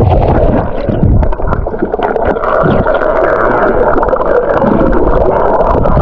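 Water churning and gurgling close to the microphone, a loud muffled rumble with little high sound in it and uneven low thumps.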